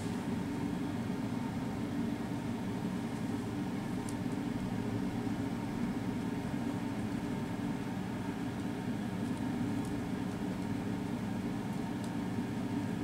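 Steady low mechanical hum with a faint high tone running through it, and a few faint light clicks about four seconds in and again near the end.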